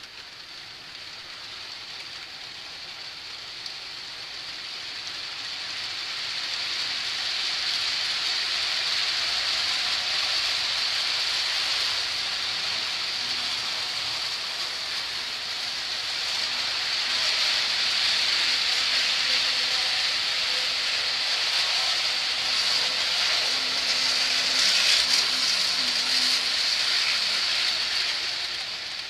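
Model train running on the layout's track: a steady rolling hiss with a high whine in it, building over the first several seconds and then holding steady.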